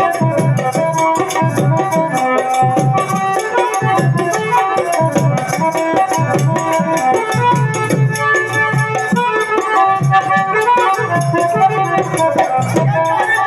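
Loud Indian folk-style song music with a steady drum beat and a rattling shaker.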